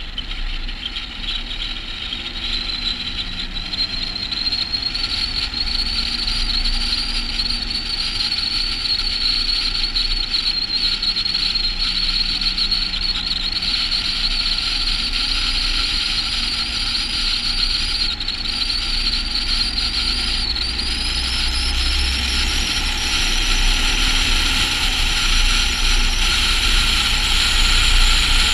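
Volvo FH16 700 truck on the move: a low drone from its 16-litre straight-six diesel under road and wind rush, with a steady high whine that climbs slowly in pitch and steps up about two-thirds of the way through.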